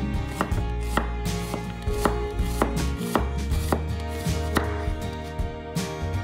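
Chef's knife slicing an onion on a wooden cutting board: a crisp knock of the blade through the onion onto the board, about twice a second.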